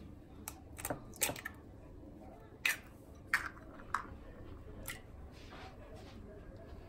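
An egg cracked on the rim of a glass bowl and its shell pulled apart: a handful of sharp, light taps and clicks, spaced irregularly over several seconds.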